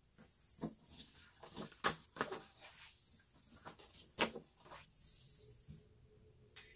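Sheets of paper being handled and gathered into a stack: soft rustling with a few sharp taps, the loudest about two and four seconds in.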